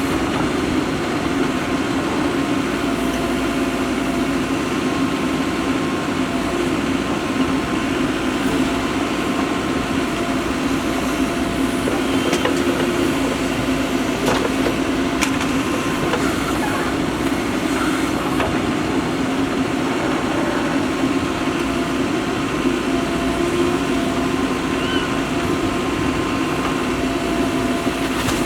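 Diesel engine of a Mahindra Earthmaster SX backhoe loader running steadily while it works, with a few faint knocks about halfway through.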